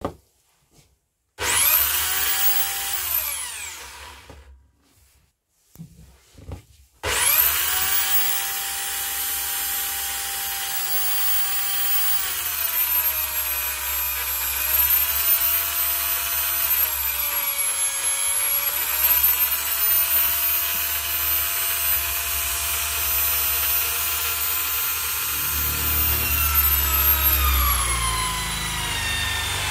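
Einhell corded variable-speed drill in a Wolfcraft drill stand starting with a whine, running briefly and spinning down. After a pause it starts again and runs steadily at high speed, its pitch dipping a few times. Near the end a 35 mm Forstner bit is lowered into the wooden board, and the motor slows as the bit cuts with a low rumble.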